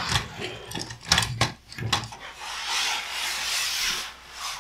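A few plastic knocks from LEGO pieces being handled, then a large LEGO baseplate board with train track sliding across a tabletop for about two seconds.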